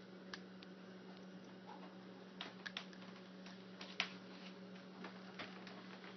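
Light scattered clicks and taps as a sugar glider chews on a cotton swab and is handled, clustered around the middle with the sharpest tap about four seconds in, over a faint steady low hum.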